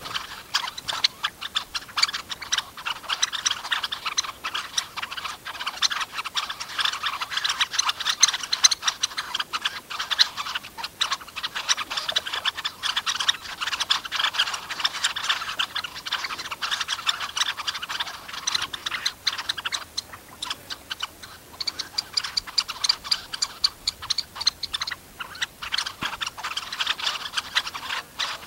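A flock of red-necked phalaropes calling: a dense, continuous run of short, sharp clicking calls, many a second.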